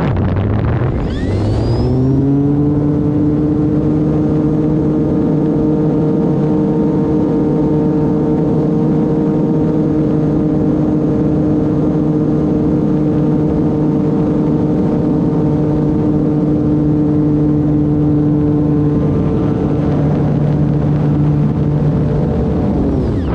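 Electric motor and propeller of an E-flite Turbo Timber Evolution RC plane, a steady buzzing drone over a noisy wind-like rush. The pitch dips and climbs back within the first two seconds as the throttle comes down and up, then holds steady, and drops away right at the end.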